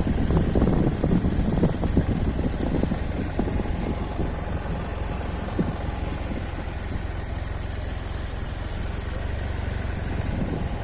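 BMW F 800 motorcycle's parallel-twin engine running steadily at low speed, a continuous low rumble.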